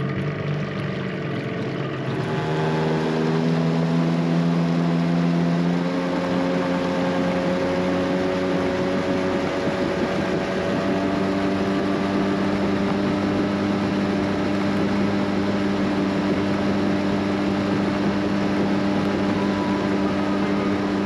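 Small tiller-steered outboard motor on an aluminium dinghy opening up about two seconds in, its pitch climbing over the next few seconds as the boat gets under way, then running steadily at cruising speed.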